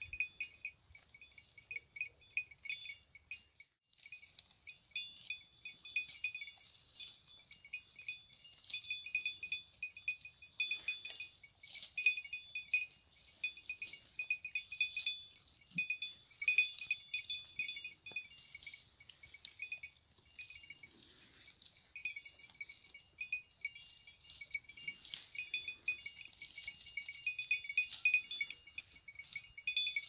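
Small metal bells on goats' collars ringing in an irregular, jingling pattern as the goats move their heads while browsing on shrubs.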